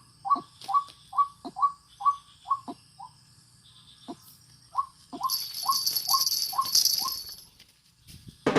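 White-breasted waterhen calls: a rapid run of short, clipped notes, about three a second. The notes break off about three seconds in and resume briefly a second later. A higher hiss runs from about five to seven seconds.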